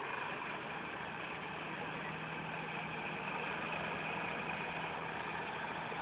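Komatsu bulldozer's diesel engine running at a steady, even pitch.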